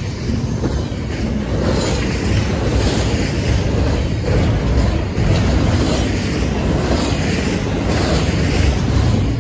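Double-stack intermodal container well cars of a freight train rolling past close by: a loud, steady rumble of steel wheels on rail, heaviest in the low end.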